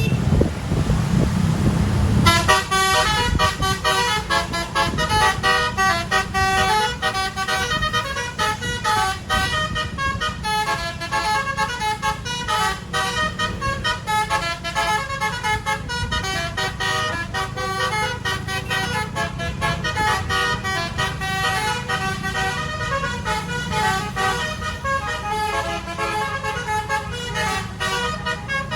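Basuri multi-tone air horn on a bus playing a fast tune of short, quickly changing notes, starting about two seconds in and running on, over the low rumble of the engine and road.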